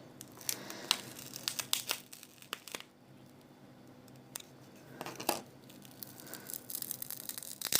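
Crinkling, rustling and sharp clicks of a dismantled mobile phone's plastic and metal parts being handled and pried apart. The clicks come thick in the first few seconds and again near the end, with a quieter stretch between.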